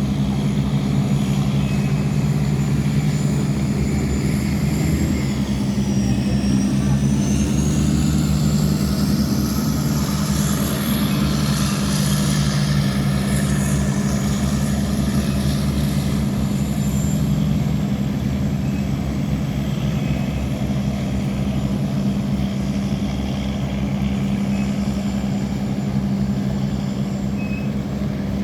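Boat engines running steadily with a deep, even hum, plus a faint high whine that dips and rises in pitch a few seconds in.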